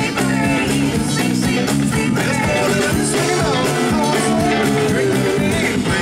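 Live rock band playing through amplifiers: electric guitars and bass over a steady drum-kit beat, with singing.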